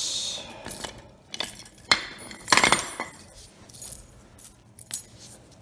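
Small metal parts of a broken pressure-washer pump clinking and rattling against the pump body and a concrete floor as the pump is taken apart: a brief scrape at the start, then several separate clinks and one longer clatter about halfway through.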